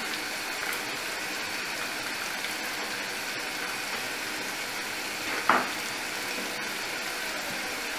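Chicken pieces and sliced onions sizzling steadily in hot oil in a frying pan, with one brief louder sound about five and a half seconds in.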